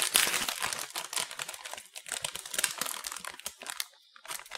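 A potato chip bag crinkling as it is handled and pulled open at the top: dense crackling that thins out near the end.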